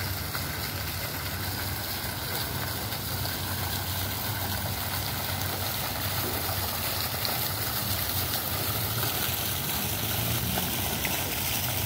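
Jet fountain's water splashing into its basin, a steady hiss, over a low rumble.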